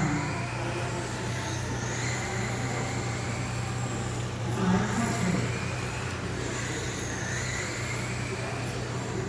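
Electric RC cars lapping a carpet track, their motors whining and gliding up and down in pitch as they speed up and slow down through the turns.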